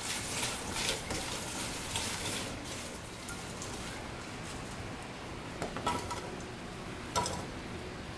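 Diced bell pepper and cucumber being tossed by a gloved hand in a glass bowl: a wet rustle and crackle of the vegetable pieces, busiest in the first couple of seconds. Later come a few short clinks against glass.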